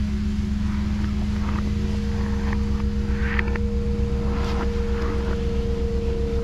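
Ambient drone music: a steady low hum over a fast throbbing bass pulse, with a sustained higher tone coming in about two seconds in and scattered faint clicks and crackles.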